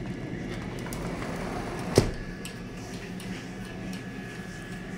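Steady hum of an air fryer running, with a single sharp knock about two seconds in.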